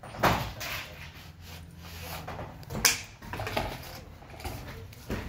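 Several sharp knocks and clicks, as of objects being handled and set down, the loudest just after the start and about three seconds in.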